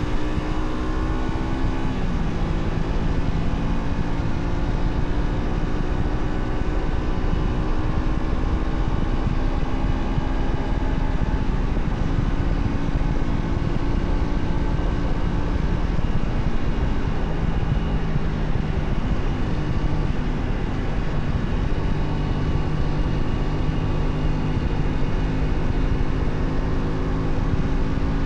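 Honda Shadow 125's small V-twin engine running under way on the road. Its pitch drops about two seconds in, then holds fairly steady and creeps slowly up, over a constant rush of wind and road noise.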